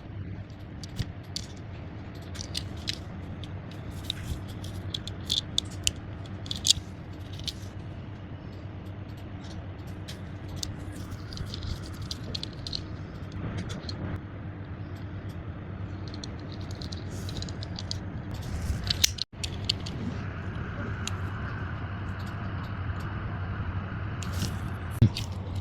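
Scattered small clicks, scrapes and crinkles of hands handling a diecast toy car's packaging, over a steady low hum.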